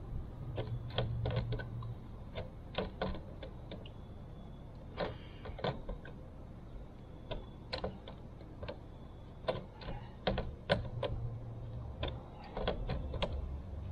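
Irregular small clicks and light metallic taps as the nut on the back of an RV storage-door cam lock is tightened onto its tailpiece.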